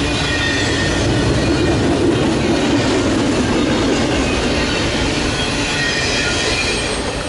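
Double-stack intermodal freight train rolling past, its loaded container well cars rumbling steadily on the rails with thin squeals from the wheels.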